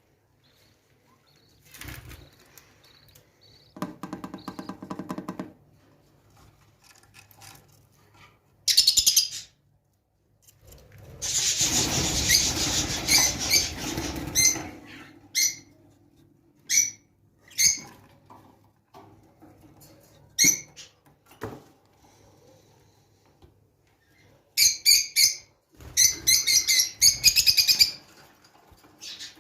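Ornamental cage birds chirping in short high calls, with bursts of wing flapping. About eleven seconds in there is a longer stretch of fluttering, and near the end there are quick runs of chirps.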